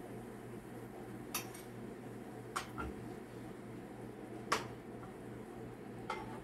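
Metal spatula clinking four times against a frying pan and plate while fried banana fritters are lifted out, over a steady low hum.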